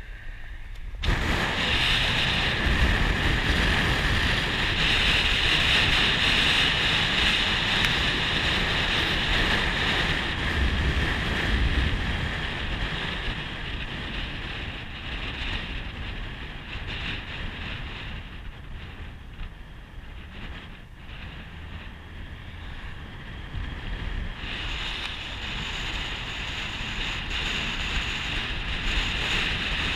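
Wind rushing past a moving car's open window, with road noise underneath. It starts abruptly about a second in, eases off in the middle and picks up again near the end.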